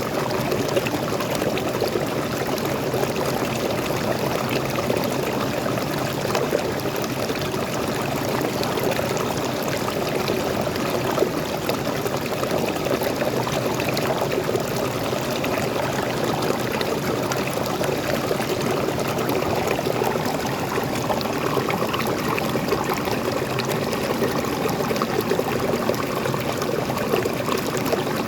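Water of a small forest waterfall pouring and splashing into a stream, a steady unbroken rush.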